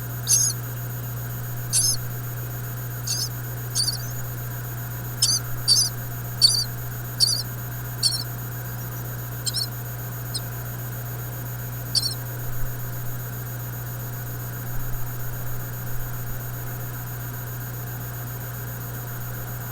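Nestling birds giving short, high-pitched begging calls, about a dozen at irregular intervals over the first twelve seconds and then dying away. A steady low hum runs underneath.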